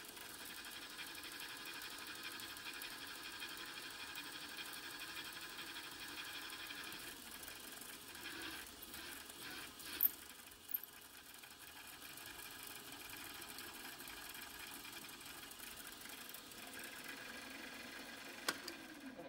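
Vertical mill spindle running steadily while a 15/64-inch twist drill bores a cross hole through a 12L14 steel part, drilling undersize before reaming. A few short clicks come about halfway through and again near the end.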